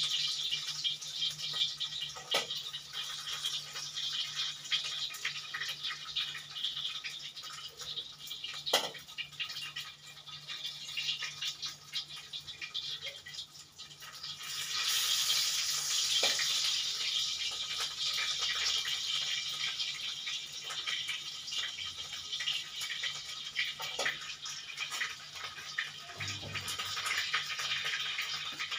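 Salted fish frying in hot oil in a wok: a steady sizzle full of fine crackles and spatters that swells louder about halfway through. A few light taps of a metal spatula on the wok come through it.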